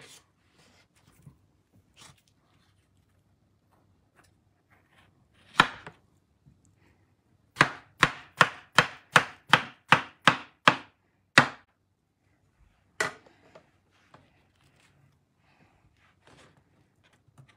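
Chef's knife chopping peeled cantaloupe flesh into cubes on a wooden cutting board. One knock comes first, then a quick run of about ten chops close to three a second, then one more.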